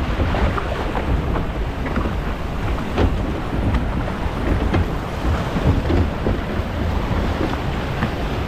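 Water rushing and splashing around a log flume boat moving along the flume channel, with wind buffeting the microphone as a heavy low rumble.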